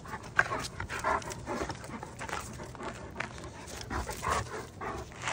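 Dog panting in short, uneven breaths, about two a second.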